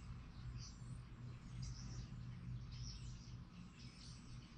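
Sculpting turntable turned by hand, with faint scattered high squeaks over a low steady hum.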